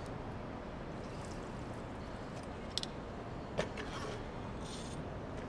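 Quiet, steady background hiss with two brief faint clicks a little under a second apart, near the middle.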